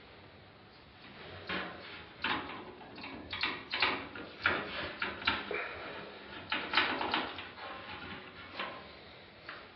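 Irregular sharp metallic clicks and light clatters, about a dozen of them, as screwdriver and small screws are worked against the steel computer case while the motherboard's mounting screws are taken out.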